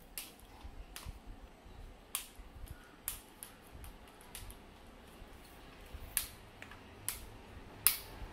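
Black plastic flip-lock clips on an aluminium tripod's telescoping legs snapping as the leg sections are pulled out: about eight sharp clicks, irregularly spaced, the loudest near the end.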